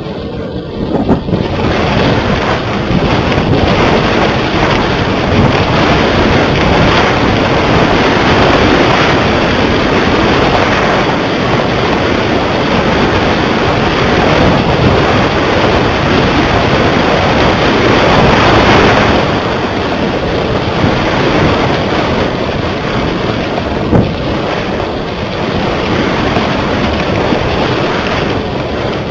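Wind rushing over the microphone of a small camera carried aloft on a kite, a loud, even rush that swells about a second in and gusts up and down. A single sharp knock comes late on.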